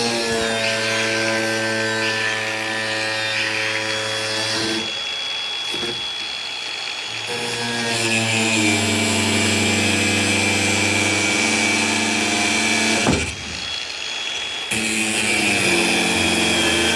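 Electric power tool motor whining as it cuts, in three runs that stop about five seconds in and again about thirteen seconds in. A hissing cutting noise rises under the whine during the middle run.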